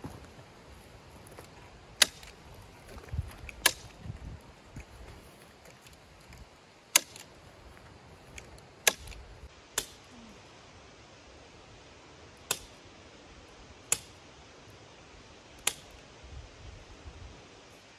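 Staple gun firing about eight sharp snaps, one to three seconds apart, as it fastens chicken wire to a wooden frame.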